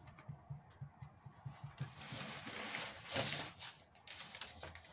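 Sisal rope being pulled and pressed around the rim of a plastic jug: the rope rustles and scrapes, with a run of soft low taps in the first couple of seconds and the loudest scrape about three seconds in.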